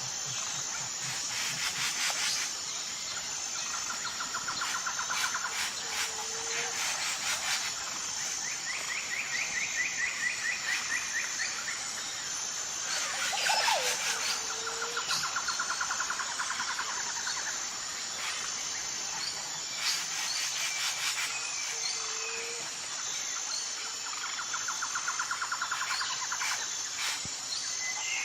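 Tropical jungle ambience. A constant high insect drone with rapid pulsing buzzes runs underneath, while birds give repeated trills of about two seconds each. A short low call comes every seven or eight seconds, and a loud falling call sounds about halfway through.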